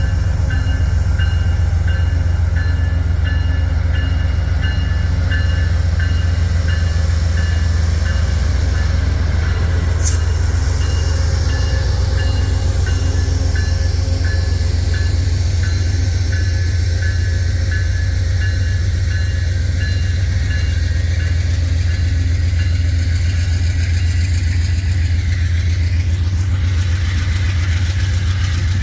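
Amtrak diesel passenger locomotive and train with a deep, steady engine rumble. Over it a grade-crossing bell dings about twice a second and fades out about three-quarters of the way through.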